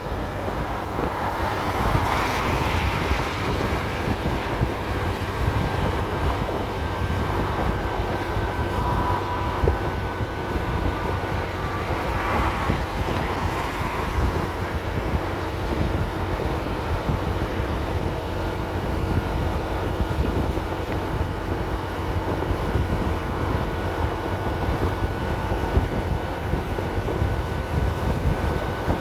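Motor scooter riding at highway speed: steady wind buffeting on the microphone over a steady engine drone, with two brief swells of noise, about two seconds in and near the middle.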